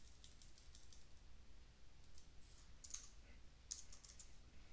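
Faint typing on a computer keyboard: scattered keystrokes in small clusters.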